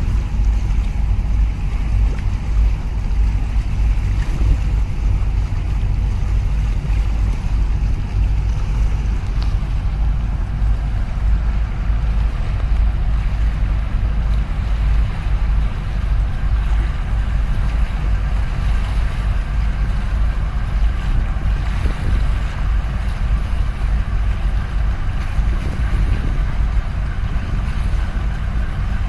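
Steady deep rumble from a harbour tug and a large container ship passing close, mixed with water noise from the tug's wake and wind on the microphone. A few faint steady whining tones join in during the second half as the tug comes past.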